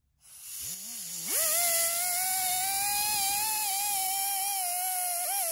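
A cuckoo clock's music box movement running. Its spinning governor spins up with a rising whine, then holds a wavering high hum over a hiss, and climbs higher again near the end.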